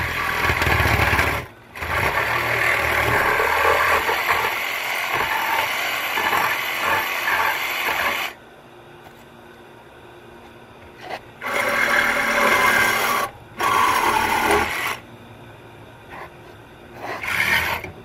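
Cordless reciprocating saw cutting through an air-conditioning condenser's metal refrigerant line, in stop-start runs: a long cut of about eight seconds with one brief stop, then three shorter bursts with pauses between.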